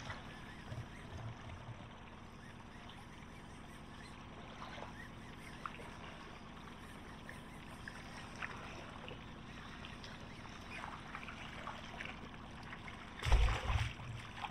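Light water lapping and trickling around a small boat, with scattered faint ticks. About thirteen seconds in, a hooked fish thrashes and splashes at the surface beside the boat, with a few low thumps.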